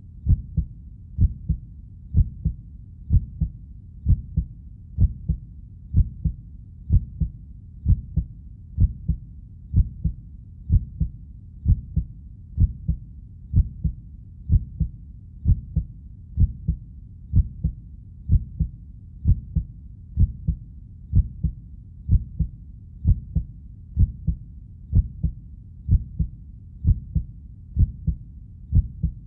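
Heartbeat: a steady double thump (lub-dub) repeating about once a second, low and deep, over a faint low rumble.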